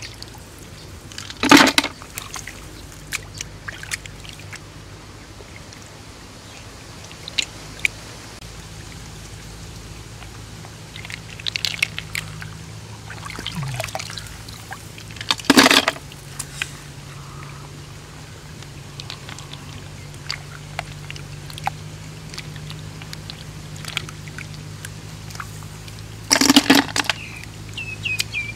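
Muddy water sloshing and pouring in three loud splashes, with small wet clicks between them over a steady low hum. A bird chirps briefly near the end.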